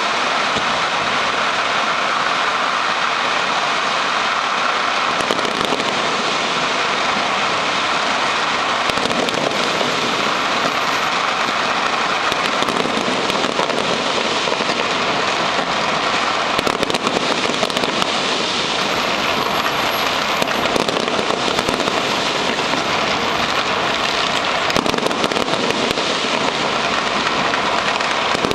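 Firecrackers and fireworks going off in a dense, unbroken stream of rapid crackling pops, with no single bang standing out.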